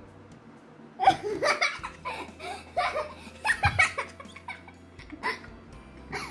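A young boy and a woman laughing hard in repeated bursts, starting about a second in.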